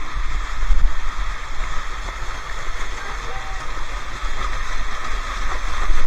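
Waterfall pouring and splashing right beside the microphone: a loud, steady rush of falling water with a deep rumble underneath.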